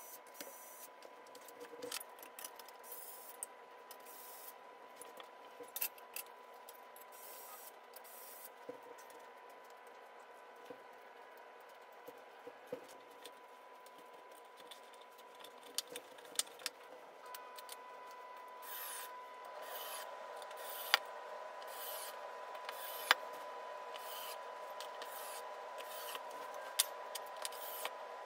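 Scattered light clicks, knocks and rubbing from handling the steel frame, wooden desktop and small hardware of a standing desk during assembly, over a faint steady hum that grows slightly louder in the last third.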